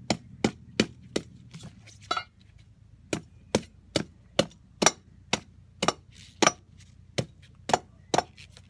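Repeated sharp knocks of a chopping blade striking the shell of a fresh coconut, about two blows a second with a short pause after the first second, scoring a line around the shell to crack it open.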